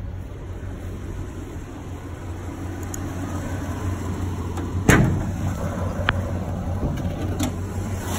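1976 Chevrolet C10's original 350 small-block V8 idling steadily, with a sharp clunk about five seconds in as the hood is popped open, and a couple of lighter clicks after it.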